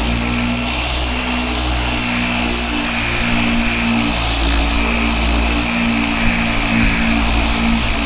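Dual-action sander with 80-grit paper running steadily against dried body filler on a car body panel, knocking the top layer off before blocking by hand.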